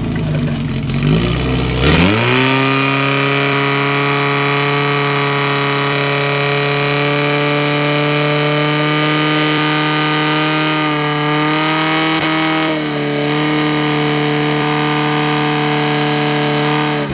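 Portable fire pump engine revving up sharply from idle about two seconds in, then running steadily at full throttle while driving water through the hose line, with a brief dip in pitch about eleven seconds in; the engine speed drops off right at the end.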